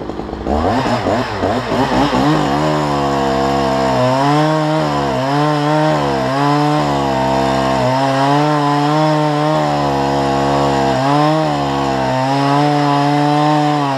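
Two-stroke chainsaw revved up from idle and cutting into the trunk of a Lawson cypress, its engine note dipping briefly several times as the chain bites, then dropping back to idle at the end.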